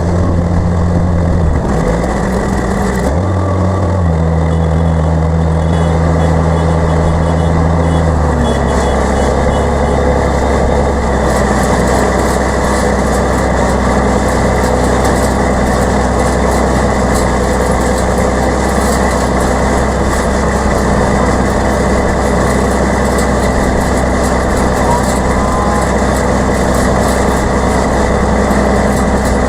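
Tractor engine running steadily, its note changing twice in the first eight seconds and then holding steady.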